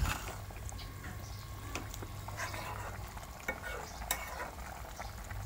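Metal ladle stirring a simmering chicken curry in a wok: a faint hiss of the bubbling gravy with a few light clicks of the ladle against the pan.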